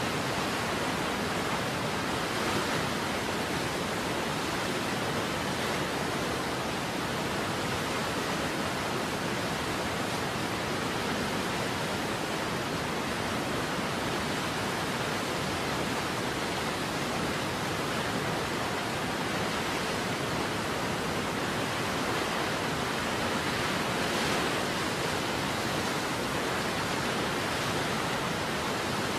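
Steady, even rushing of a large waterfall, with no breaks or changes.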